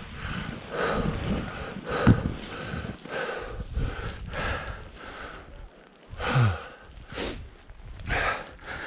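A person breathing hard after exertion, with quick repeated breaths. Two breaths, about two seconds in and again just past six seconds, carry a short falling sound of the voice.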